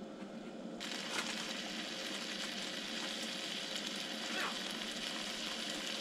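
Bacon strips frying in a pan on a small electric hot plate: a steady sizzle with scattered faint crackles, stepping up in level about a second in.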